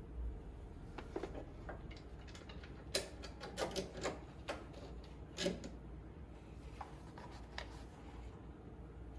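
Scattered light clicks and metallic clinks of hand tools and small parts being handled during mower wiring work, loudest about three seconds in and again about five and a half seconds in, over a faint steady low hum.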